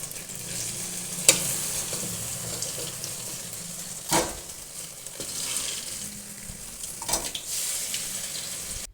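Pointed gourd (potol) halves stuffed with lentil paste sizzling steadily in hot oil in a kadai, with three short knocks of a utensil against the pan as the fried pieces are lifted out.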